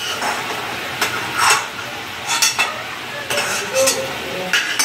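Perforated metal spoon clinking and scraping against a wok several times as lightly fried prawns are scooped out, over a steady sizzle of hot oil.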